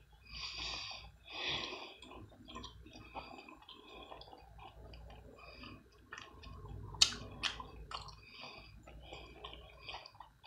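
A person chewing food with wet mouth sounds. Soft chewing bursts in the first two seconds give way to scattered small clicks, with a few sharp clicks a little after seven seconds.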